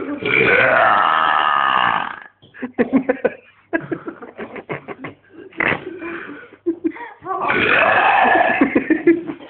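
A man burping on purpose: two long, loud belches, one in the first two seconds and another starting about halfway through and lasting nearly two seconds, with short choppy sounds between them.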